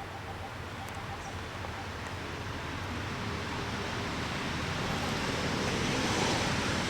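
A steady rushing noise that slowly grows louder.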